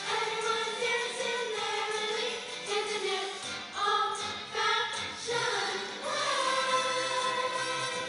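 Middle-school choir singing a Christmas song in unison and harmony, the sung notes moving for several seconds and then settling about six seconds in into one long held note.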